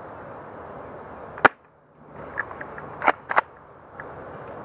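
Spring-powered airsoft shotgun shots: three sharp snaps, the first and loudest a little over a second in, then two close together about a second and a half later.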